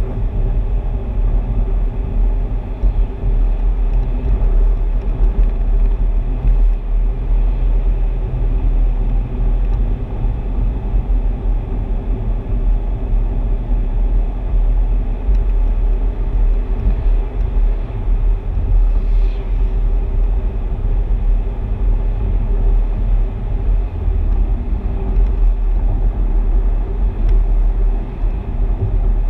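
Steady low rumble of a car driving along a paved mountain road: engine, tyre and road noise at a constant level.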